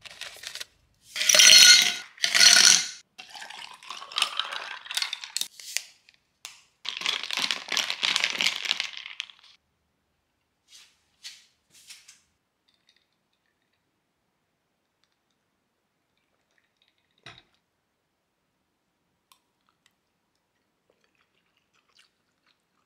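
Plastic drink pouches rustling and crinkling as a hand rummages through them in a drawer and pulls some out, with two loud rustles in the first few seconds and a longer stretch of crinkling a few seconds later. After about ten seconds it falls almost silent, broken by a single faint click.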